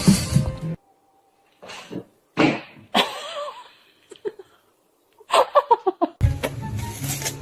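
Background music that stops after under a second. It gives way to a few sharp knocks and short wavering vocal sounds, ending in a quick run of pulsed cries falling in pitch. The music starts again near the end.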